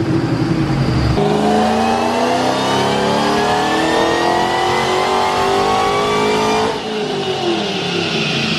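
Supercharged 5.8-litre V8 of a 2013–14 Shelby GT500 making a full-throttle dyno pull. From about a second in, the revs climb steadily for several seconds, then the throttle is lifted near the end and the revs fall away.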